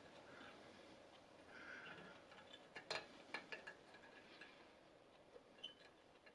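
Faint scratching with a few light metallic clicks about three seconds in: a scriber point tracing around the edge of a washer's hole to mark a metal tool blank.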